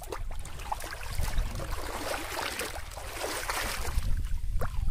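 Wind rumbling on the microphone, with scattered light knocks and a hissing rush in the middle seconds as plastic bottle floats are handled.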